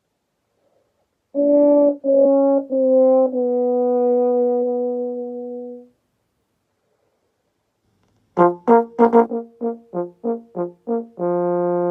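Trombone playing four notes, each a little lower than the last, with the final note held for about two and a half seconds, in the pattern of the 'sad trombone' gag. After a pause it plays a quick run of about ten short, detached notes ending on a held note.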